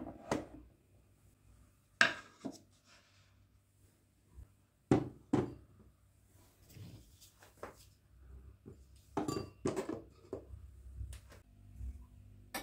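Dishes and kitchen utensils being handled and set down: a series of separate knocks and clinks a second or a few seconds apart, with quieter handling noise between them.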